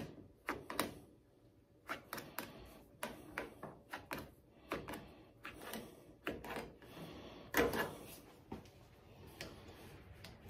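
Irregular clicks and light knocks as rubber roof-rail weatherstripping on a 1969 Dodge Charger is pushed and clicked into its metal retainer, with one louder knock a little past halfway.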